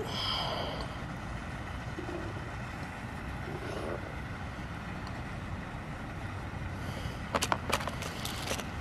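Steady low rumbling background noise, with a short high-pitched sound right at the start and a quick cluster of sharp clicks near the end as small fishing tackle is handled close to the microphone.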